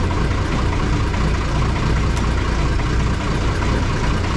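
Fishing boat's engine idling, a steady low hum that holds even throughout.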